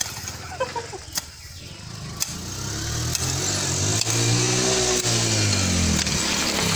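A motor vehicle passing close by: its engine and road noise build over the first few seconds, and the engine note rises and then falls as it goes past. A few sharp knocks of a hand hoe chopping into soil come through.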